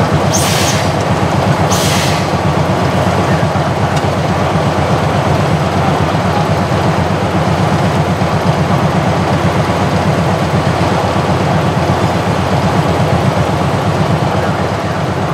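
Small diesel switcher locomotive's engine running steadily and loud, with a deep low rumble, as it hauls a train of passenger cars at walking pace. Two short hisses of air come in the first two seconds.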